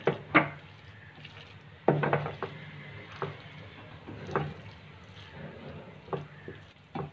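A spatula stirring a thick chicken and vegetable filling in a frying pan, scraping through it with irregular knocks against the pan, the sharpest at the start and about two seconds in.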